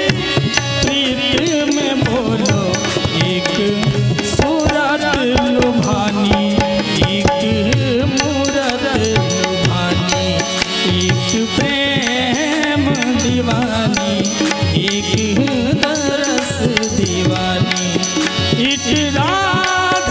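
A man singing a Hindi song live into a microphone, his voice wavering with vibrato, over instrumental accompaniment with a steady percussion beat.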